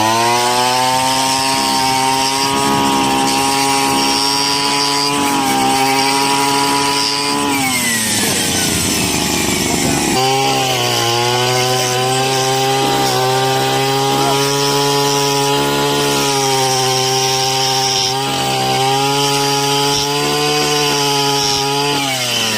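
Small engine of a motorised pine-resin tapping machine running at high revs while cutting. The revs drop back about seven and a half seconds in, pick up again around ten seconds, and fall away near the end.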